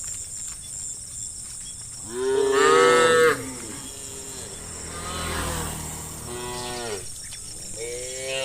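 Cows mooing: one loud, drawn-out moo about two seconds in, then several fainter, lower moos later on.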